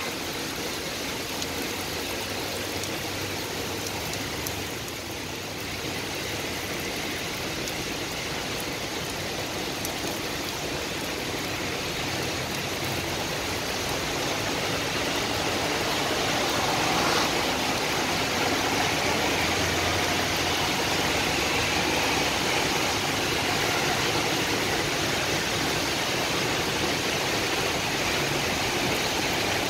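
Steady hiss of heavy rain falling over a city, growing a little louder about halfway through.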